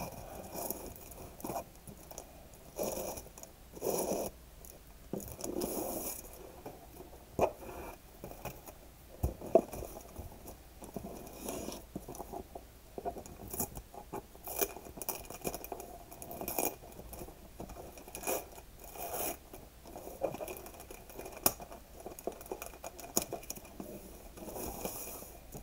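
Gift-wrapping paper rustling and crinkling in irregular handfuls as a present is unwrapped by hand, with a few sharp clicks and knocks on the tabletop.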